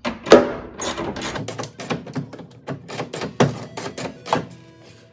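Hand ratchet clicking in short, uneven runs, with metal knocks, as the bolt of a tonneau cover rail clamp is tightened against the truck's bed rail; the loudest is a sharp knock just after the start.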